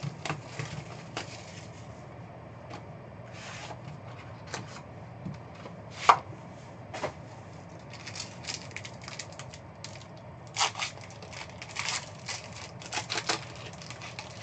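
Trading-card box and packaging being opened and cards handled on a table: scattered taps, clicks and scrapes, with a sharper knock about six seconds in and a run of clicks later on.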